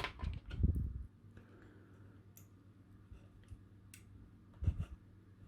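Scattered small clicks and taps of handling a capacitor and a small circuit board, its leads being fitted through the board, with a short cluster of soft knocks a little before the end.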